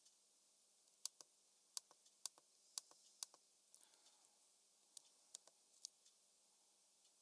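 Smith-Corona Calypso manual typewriter being typed on: a dozen or so sharp, irregularly spaced clicks of keys striking, in a short run with pauses.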